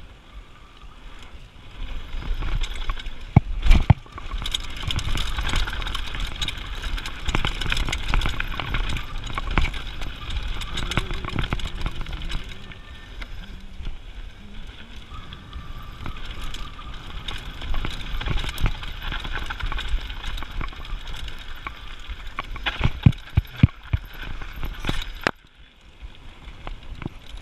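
Mountain bike rolling fast down a gravel and dirt trail: continuous tyre noise over loose ground with wind rumble, and the bike rattling and clattering, with a few sharp knocks over bumps. The level drops suddenly near the end.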